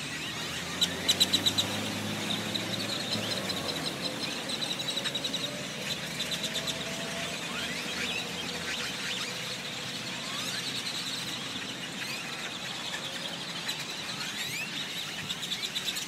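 A huge flock of blackbirds calling all at once: a dense mass of overlapping chirps, rising whistles and rapid rattling clicks, with a low vehicle hum under it in the first few seconds.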